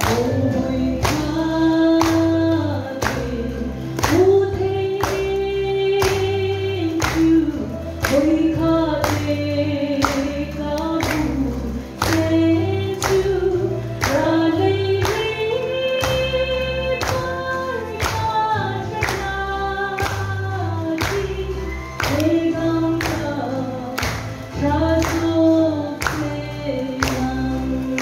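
A group singing a gospel song together over a bass accompaniment, with hand-clapping on the beat about twice a second.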